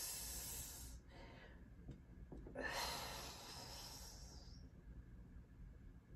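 A woman breathing out audibly, twice. One breath ends about a second in; another starts about two and a half seconds in and fades over about two seconds.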